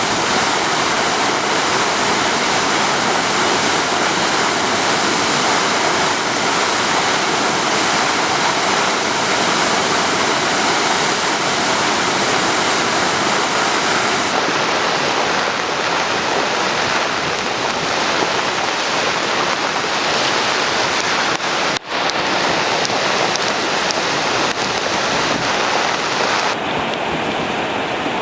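Rain-swollen mountain river in flood: a loud, steady rush of fast-flowing water. The rush breaks off for an instant about two-thirds of the way through.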